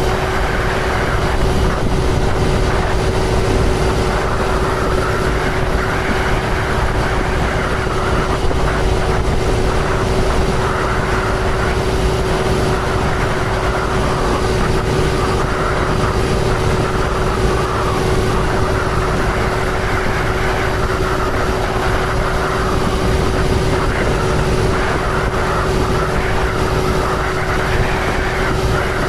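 2005 John Deere sprayer running steadily across the field: an even engine drone with a constant whine through it, holding the same pace throughout.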